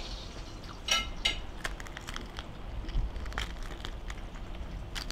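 Crisp fried kutab (stuffed flatbread) being torn and crunched by hand, a string of sharp crackles, the two loudest about a second in.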